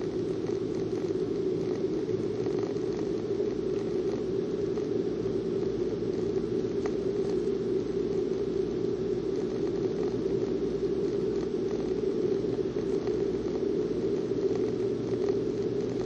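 Steady drone of a car driving at road speed, its tyre and engine noise heard from inside the car, unchanging throughout.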